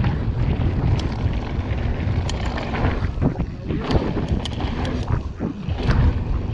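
Mountain bike ridden fast down a dirt trail: wind buffets the microphone with a steady rumble, and sharp clicks and rattles from the bike cut through it every second or so.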